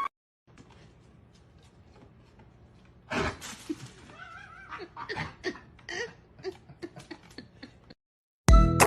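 A cat meowing with one wavering call about four seconds in. Scattered clicks and knocks surround it, and a loud rustling thump comes just before it.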